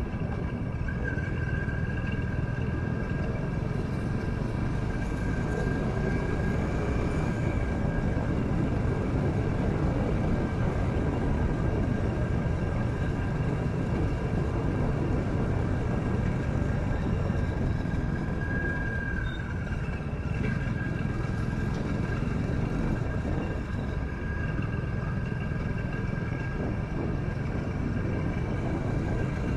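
Steady road noise from a moving motorcycle: low wind rush over the microphone mixed with the engine's drone, with a few faint, steady high-pitched tones above it.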